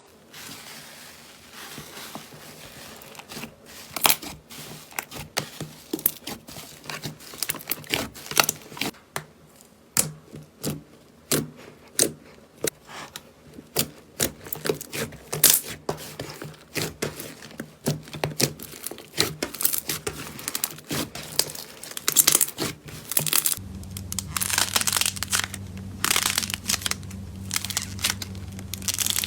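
Slime being squeezed and poked by hand, giving sharp crackling and popping clicks. About three-quarters of the way through the sound changes to a denser crinkly crunching over a low steady hum.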